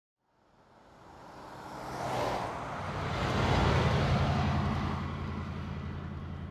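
A motor vehicle passing by: a low engine hum with road noise swells to a peak a few seconds in, then slowly fades away.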